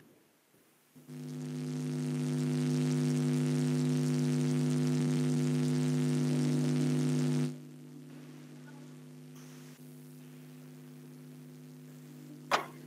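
Steady electrical mains buzz coming through the video-call audio. It swells in over the first couple of seconds, holds loud, then drops sharply to a much quieter hum about seven and a half seconds in. A sharp click comes near the end.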